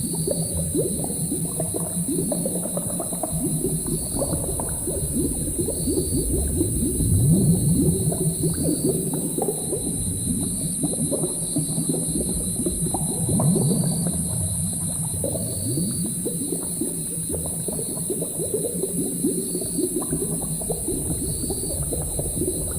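Layered room ambience of low bubbling and gurgling, like a bubbling cauldron, with a steady high hiss and a faint high tick about every two seconds.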